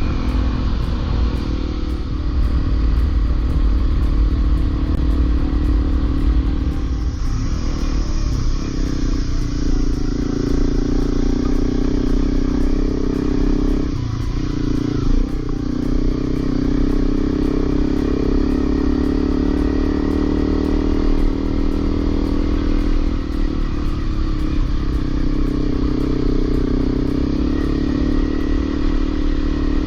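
Honda CRF250L's single-cylinder engine running at steady riding revs, with low wind rumble. About halfway through the revs dip briefly, then pick up again.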